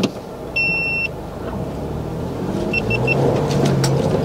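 Ford Bronco engine pulling at low speed over rocks in four-wheel-drive low, its note rising toward the end. An electronic tone sounds once about half a second in, three short quick beeps follow about three seconds in, and a few sharp knocks come near the end.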